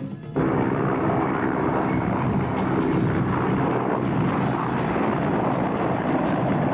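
Mi-24 attack helicopter in flight: steady rotor and turbine noise that starts abruptly about a third of a second in.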